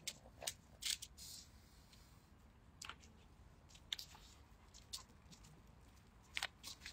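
Faint crackling of dry fallen leaves as a Labrador noses and steps through them: scattered sharp crackles and clicks, some in quick pairs, about a second apart.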